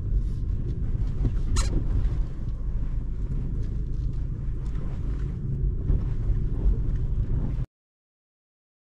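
Cabin sound of a 2022 Mini Cooper S with its 2.0-litre four-cylinder petrol engine, crawling slowly over a rutted dirt road: a steady low rumble of engine, tyres and suspension, with a brief squeak about one and a half seconds in. The sound cuts out abruptly to silence about a second before the end.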